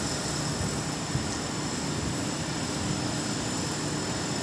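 Steady city street noise: a continuous low rumble of traffic with a faint steady hum over it.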